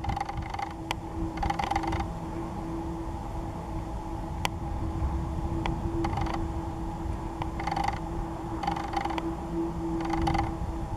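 Creaking and whirring handling noise from the camera rig as it pans and zooms: about six short bursts, a few sharp clicks, over a steady low hum and rumble.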